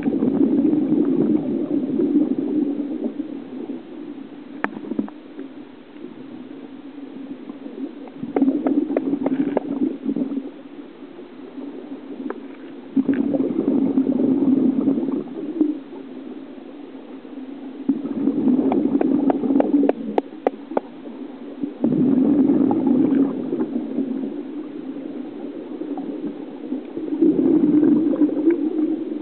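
Scuba regulator breathing heard underwater: a bubbling, gurgling rush of exhaled bubbles every four to five seconds, six times, each lasting two to three seconds with crackling pops.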